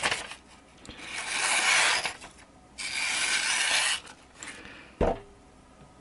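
A sharp VG-10 san-mai folding knife slicing through a strip of thin printed paper: a click at the start, then two drawn-out papery cuts of about a second each, and a single knock about five seconds in.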